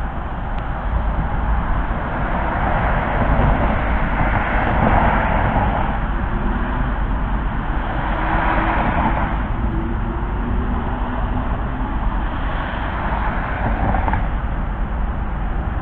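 Cars passing on a wet, snowy street, with tyres hissing on the wet road. The hiss swells three times, about four, eight and thirteen seconds in, over a steady low rumble.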